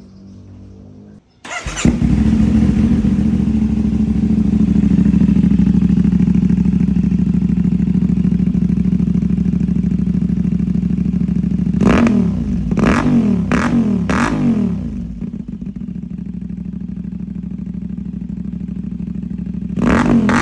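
Motorcycle engine breathing through an SC-Project aftermarket exhaust: it fires up about a second and a half in and idles loudly. Around twelve seconds in come four quick throttle blips, each rising and falling, then it settles to a quieter idle and is revved once more near the end.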